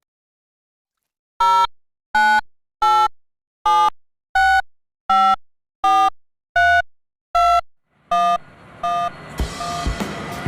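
A run of about ten short electronic beep notes, evenly spaced about three-quarters of a second apart, stepping between a few pitches like a simple melody, each note dying away quickly. Near the end, a steady background noise with light clinks comes in.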